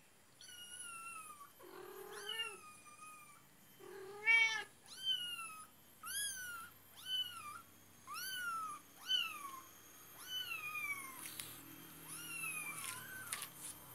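A young kitten mewing over and over, high-pitched calls about one a second, each rising briefly and then falling, as it is pinned and groomed by an adult cat. Two lower, louder cat calls come about two and four seconds in.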